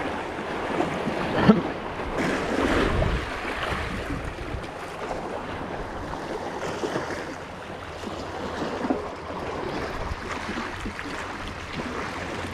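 Sea water washing and lapping at the shore, with wind buffeting the microphone; a sharp knock about a second and a half in.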